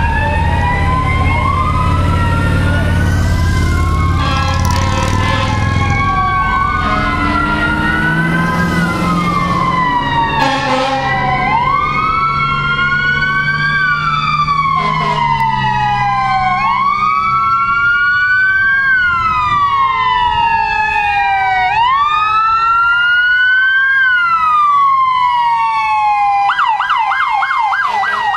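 Several electronic emergency-vehicle sirens on police and fire apparatus wail together, each rising quickly and falling slowly every two to three seconds. A vehicle engine rumbles low underneath in the first few seconds, and a rapid yelp siren cuts in near the end.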